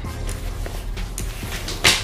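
Background music under fabric-and-strap handling noise as a nylon backpack is turned over on a wooden table, with small clicks and one short, louder scuff near the end.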